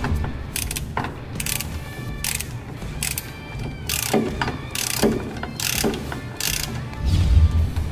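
Ratchet wrench with a 17 mm socket clicking in short repeated strokes as a nut is run down on a car's front steering knuckle.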